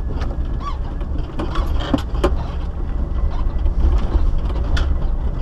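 4x4 off-road vehicle driving slowly along a rough dirt forest trail: a steady low rumble with scattered knocks and clatters as it rides over the bumps.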